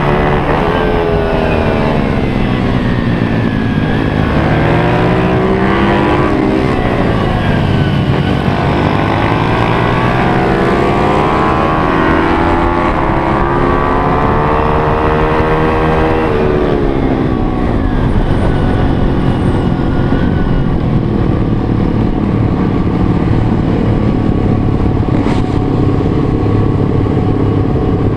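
Single-cylinder four-stroke pit bike engine heard from on the bike, revving up and down repeatedly as it is ridden hard through corners and gear changes. About 17 seconds in, the engine drops to a lower, steadier running as the bike slows to paddock speed.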